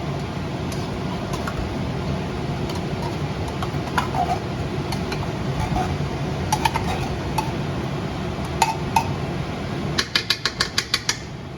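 Metal spoon clinking against a tomato paste can and the cooking pot while tomato paste is scooped into the sauce, with scattered taps and a quick run of about eight taps near the end. A steady low hum runs underneath.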